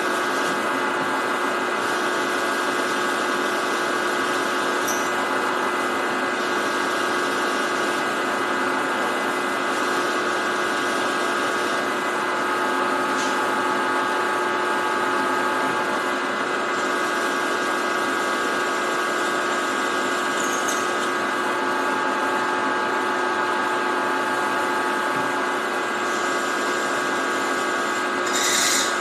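Milling machine running a twist drill into a metal block: a steady motor and spindle whine with the light hiss of cutting. Near the end a brief sharp scrape stands out.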